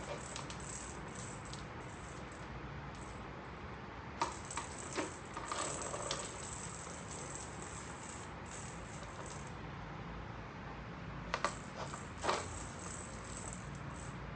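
Cat's plastic circular track-ball toy rattling as a cat bats the balls around its track: three spells of high jingling, the longest in the middle, with a few sharp knocks against the plastic.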